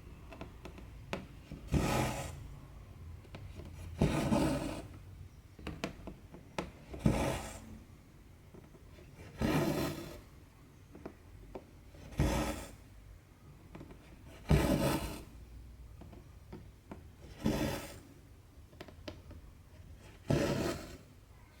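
Two strands of cotton embroidery thread drawn through 14-count cross-stitch fabric: a short rasping pull about every two to three seconds, eight in all, with faint ticks of the needle in between.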